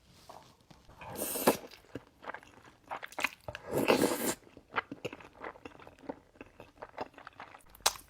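Close-miked eating sounds of a soup dumpling being bitten into and chewed with the mouth: two longer wet bites about a second in and near the middle, then many short chewing clicks.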